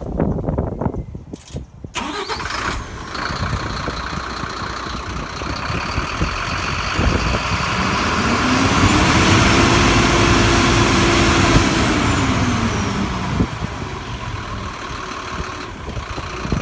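Mercedes-Benz Axor 1824 truck's straight-six diesel engine running, revved once about halfway through: the pitch climbs, holds for a few seconds with a high turbo whistle, then drops back to idle.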